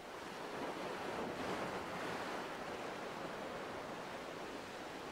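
Ocean waves washing onto the shore as a steady hiss of surf. One swell builds in the first couple of seconds and then slowly subsides.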